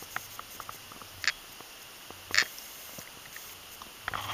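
Footsteps crunching and rustling through dry grass, with irregular small clicks and two louder brushing rustles about one and two and a half seconds in.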